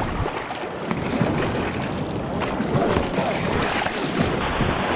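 River whitewater rushing and splashing around a kayak, with wind buffeting the microphone.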